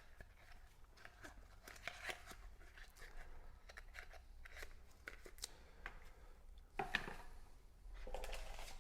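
Faint clicks and rustles of a dental curing lamp and its box being handled, with a sharper click about seven seconds in.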